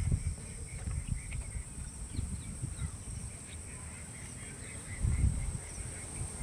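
Outdoor ambience: wind rumbling on the microphone in gusts, strongest about five seconds in, over a steady high-pitched insect drone and a bird calling in short repeated chirps.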